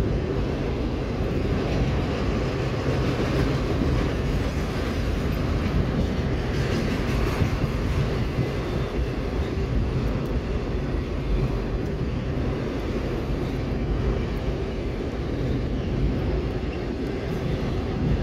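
Autorack freight cars rolling past at speed: a steady rumble of steel wheels on the rails.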